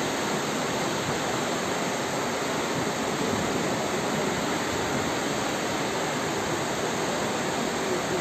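Fast-flowing muddy floodwater rushing down a street, a steady loud rush of water from an overflowing creek in a flash flood.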